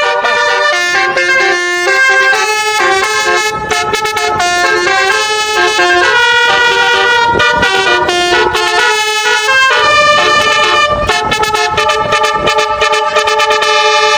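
Basuri telolet horn, a multi-tone musical vehicle horn, playing a tune of quickly changing notes, often several horn tones sounding together. Loud and continuous.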